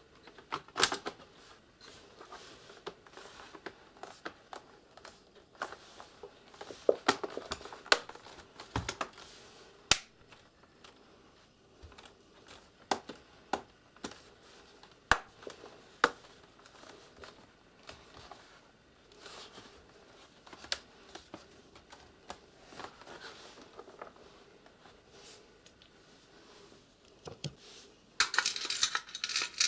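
Plastic clips of a Lenovo Ideapad Flex laptop's bottom case snapping into place as the case is pressed down around its edges: a string of sharp, irregular clicks. Near the end, a quick clatter of small screws rattling in a plastic tray.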